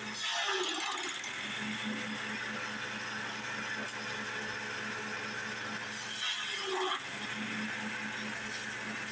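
A grass chopper machine running steadily with a pulsing engine note. It gets louder and harsher for about a second near the start, and again around six to seven seconds in.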